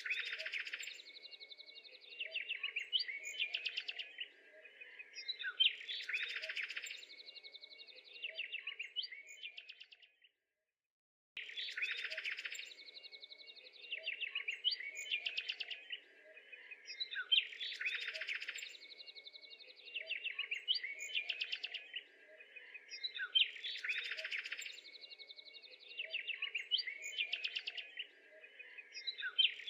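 Small birds chirping and trilling, the same phrase of calls repeating about every six seconds like a loop, over a faint steady low hum. The sound cuts out completely for about a second around ten seconds in.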